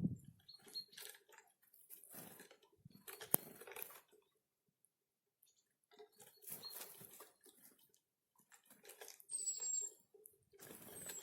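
Small forest birds at a winter feeder, pecking and shuffling at seed: irregular light taps and rustles with a pause in the middle. Near the end there is one short, thin, high call that falls in pitch.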